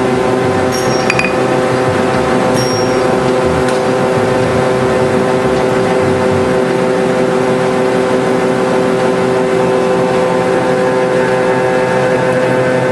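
Steady machine hum holding one constant pitch, unbroken and even in level.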